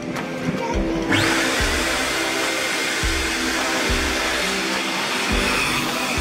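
Coin-operated car-wash vacuum switching on about a second in: its motor spins up with a short rising whine, then runs with a steady rushing hiss. Background music with a regular beat plays underneath.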